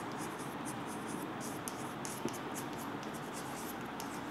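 White chalk scratching on a chalkboard as words are written: a quick series of short, faint strokes over a steady background hiss.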